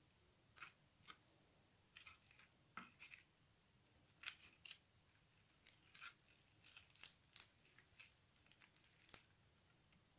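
Metallic slime being stirred and folded with a plastic spoon in a plastic bowl: a string of short, irregular clicks, some in quick pairs or clusters.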